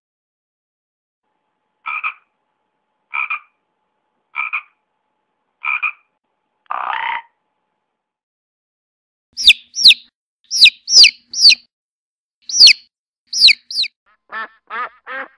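Frog croaking: four short croaks about a second apart, then a longer rasping croak, and after a pause a run of sharp, high calls, each sliding down in pitch. Near the end a duck starts quacking in quick repeated calls.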